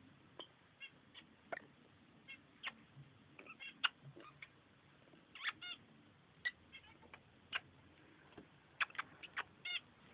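Peach-faced lovebirds giving short, high chirps, scattered irregularly with a few quick runs of two or three notes.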